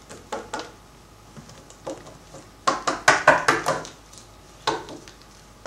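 Small plastic Littlest Pet Shop toy figures clicking and knocking against a hard surface as they are picked up and set down by hand. A few taps at first, a quick run of clicks around the middle, and another tap near the end.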